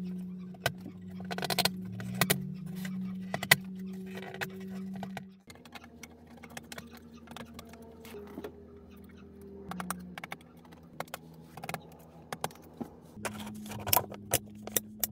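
Scattered plastic clicks and taps as a DAF truck instrument cluster's circuit board and gauge faceplate are handled and fitted back together. A steady low hum runs beneath, changing abruptly twice.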